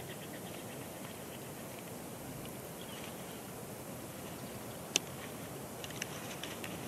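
Bald eagle shifting and settling down into its stick nest over a steady outdoor hiss, with one sharp snap of nest material about five seconds in and a few fainter clicks just after.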